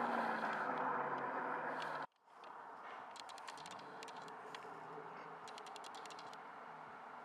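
Ford Mustang V8 and road noise fading away over the first two seconds, then cutting off abruptly. After the cut, a faint steady background with a few short runs of light clicking.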